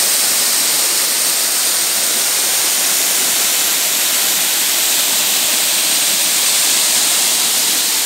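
Waterfall curtain falling close to the microphone: a loud, steady hiss of falling and splashing water, bright and even throughout.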